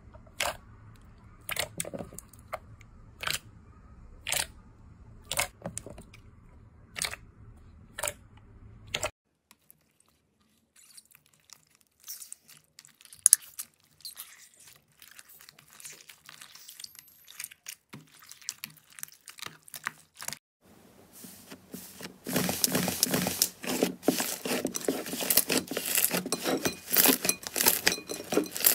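Slime worked by hand. For the first nine seconds the pressed slime gives sharp pops about once a second. After a short silence come faint squishing crackles with one loud click, then dense, loud crackling and tearing as the slime is stretched apart.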